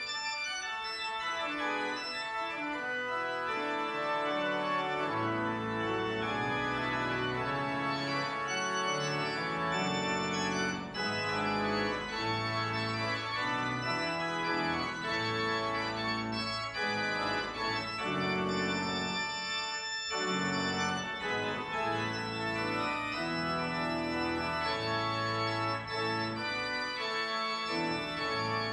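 Organ playing slow, held chords over a moving bass line, with a brief break about twenty seconds in.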